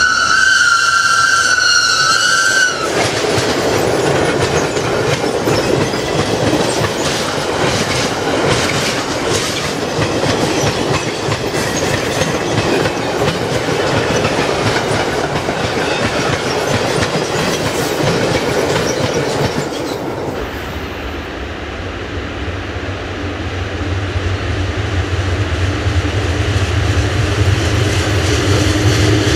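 A train horn sounds one steady note for about two and a half seconds, then a freight train of graffiti-covered covered wagons rolls past close by with clattering wheels. About twenty seconds in, after a cut, two red SBB electric locomotives heading a freight train approach with a low hum that grows louder.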